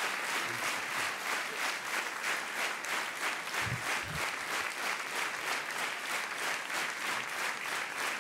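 A large audience applauding, clapping together in a steady rhythm at about three claps a second.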